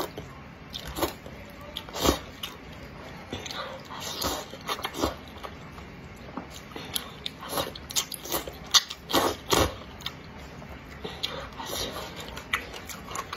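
Close-miked slurping and chewing of wide flat noodles, with short wet slurps and lip smacks coming every second or so, the loudest few close together about nine seconds in.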